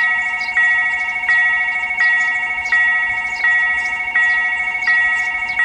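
Railroad level-crossing warning bell ringing: an electronic chime struck about once every 0.7 seconds, each strike fading before the next. Under it runs a steady warbling alarm tone.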